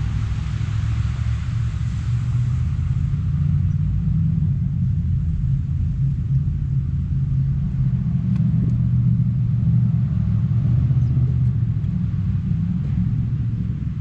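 Low, steady engine rumble of a motor vehicle, swelling over the first few seconds and easing slightly near the end, with a light hiss at the start.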